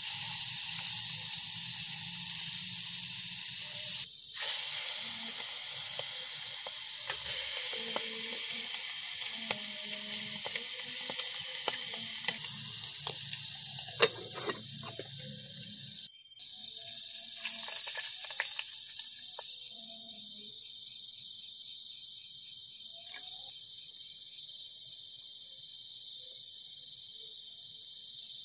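Butter sizzling as it melts in a camping pot over a portable gas stove, with a spoon scraping and tapping against the pot and a sharp clink about halfway through as the lid goes on. A little past halfway the sizzling stops and insects keep up a steady high chirring.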